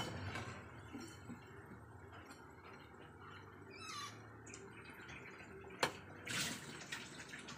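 Urad dal vadas deep-frying in hot oil in a kadai, a faint steady sizzle with small crackles. A steel slotted spoon clinks against the pan about six seconds in as the vadas are turned.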